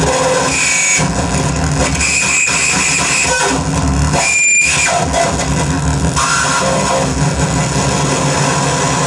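Harsh noise music played live on an electric guitar through effects pedals and an amplifier. It is a dense, loud wall of distortion, and high feedback squeals come and go through it, one cutting through sharply about four and a half seconds in.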